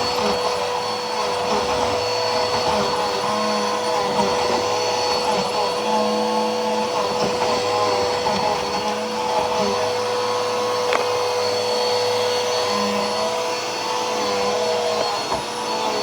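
Bissell PowerForce Helix upright vacuum cleaner running steadily while being pushed over the floor, its motor holding a steady whine, with one sharp click about eleven seconds in. The owner judges that it needs a new belt.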